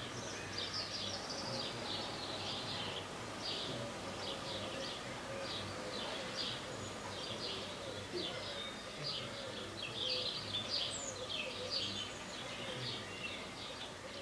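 Birds chirping and twittering, many short calls in quick succession over a steady background hiss.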